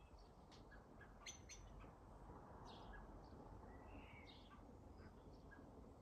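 Faint garden songbirds chirping: a soft short chirp repeated every half second or so, with a few higher, brighter calls among them.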